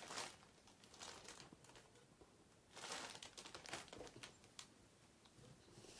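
Faint rustling of cloth being handled, a few soft rustles with the longest about three seconds in.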